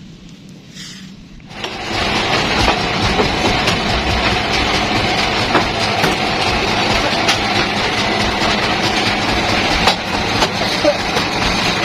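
Sawmill machinery starts up about a second and a half in and keeps running as a loud, steady mechanical noise with scattered knocks.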